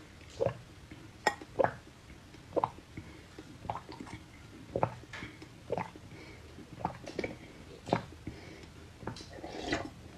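A person gulping down raw eggs from a glass bowl, a dozen or so wet swallows in a row, about one a second, heard close to the microphone.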